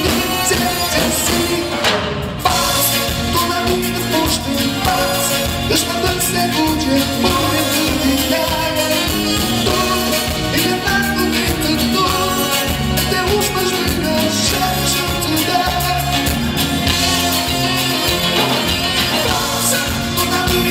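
Live band playing an instrumental passage of a Portuguese-language song with a steady beat, on drums, bass, electric guitars, keyboard and saxophone.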